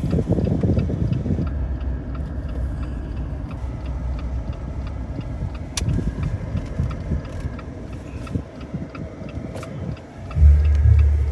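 Jeep Gladiator Rubicon driving, a steady low engine and road rumble with a faint regular ticking about twice a second. Near the end, loud low music notes come in.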